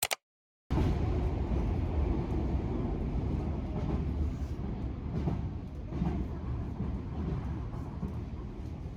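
Train running: a steady rumble with a few faint clicks, starting just under a second in after a moment of silence.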